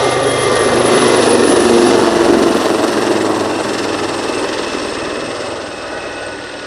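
Leonardo Wildcat HMA.2 helicopter flying past, its rotor and engine noise swelling to a peak about two seconds in and then fading as it moves away.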